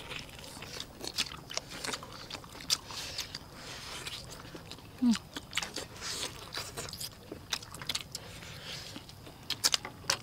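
Eating sounds: biting and chewing meat off beef rib bones, with frequent sharp smacks and crunches.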